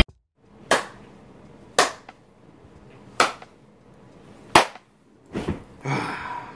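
Four sharp footsteps on a hard floor, about a second or more apart, then a longer stretch of rustling and creaking as someone sits down in an office chair.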